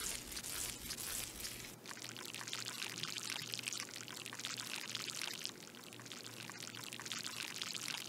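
Soft, crackly trickle of water, a steady fine fizz of tiny ticks that eases a little about five and a half seconds in.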